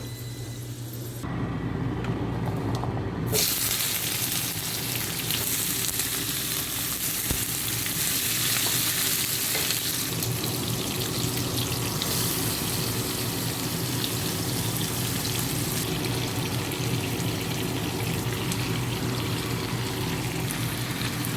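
Food sizzling in a hot frying pan: a steady frying hiss that starts about a second in and grows fuller a couple of seconds later, over a low steady hum.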